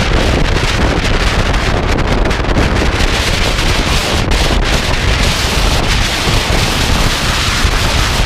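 Strong gusting wind blasting across the microphone: a loud, continuous rumbling buffet with no pauses.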